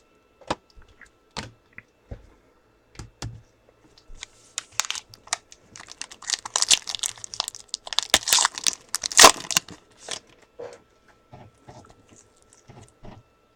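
Trading-card pack wrapper being torn open and crinkled. The tearing and crinkling is densest from about four to ten seconds in, with scattered clicks and taps of cards being handled before and after.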